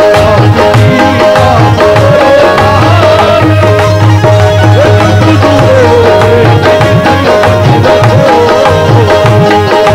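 Instrumental qawwali interlude: a melody played on an electronic keyboard, with gliding notes over a repeated held note, accompanied by a steady hand-drum rhythm.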